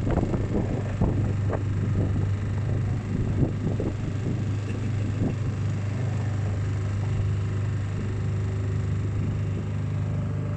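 A small hire motorboat's motor running steadily with a low, even hum. Irregular choppy noise rides on top of it for the first few seconds.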